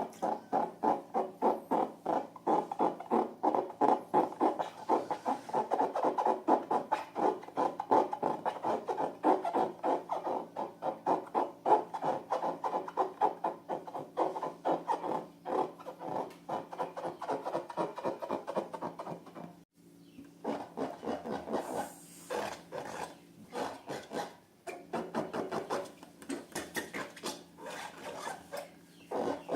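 Hands rubbing and squishing slime against balloons: a fast, even run of about four strokes a second. It breaks off briefly just before two-thirds of the way through and resumes in sparser strokes.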